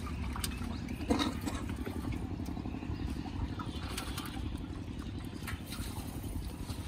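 Water splashing and sloshing as a seine net full of fish is worked in shallow pond water, with a few sharp knocks and splashes, over a steady low rumble.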